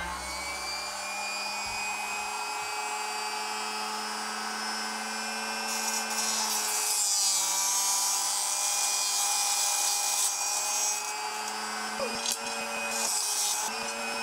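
Electric arrow cut-off saw running with a steady motor whine. Its cut-off wheel grinds through carbon arrow shafts in three harsh, hissing cuts, about six, ten and thirteen seconds in.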